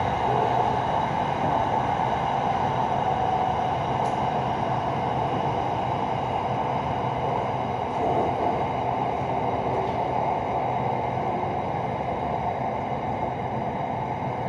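Bangkok SRT Red Line Hitachi electric commuter train running at speed, heard from inside the carriage: a steady, even running noise with a faint tick about four seconds in.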